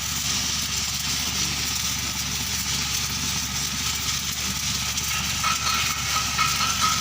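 TIG welding set running with a steady low hum and a constant hiss, and a thin high whine that comes in about five and a half seconds in.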